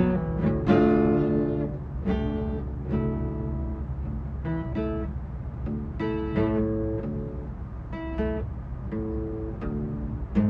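Acoustic guitar played solo, with chords picked and strummed about once or twice a second, each left to ring.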